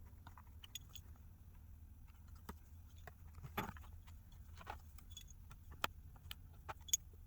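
Faint, scattered light clicks and taps of small phone parts and tools being handled during reassembly, with the strongest tap about three and a half seconds in.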